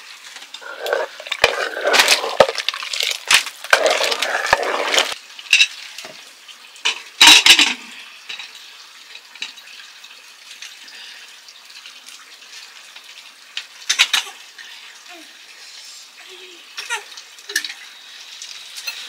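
Metal ladle stirring and scraping in an open pressure-cooker pot, with clinks against the metal, for the first five seconds; a loud clatter comes at about seven seconds, then only occasional light knocks and clicks.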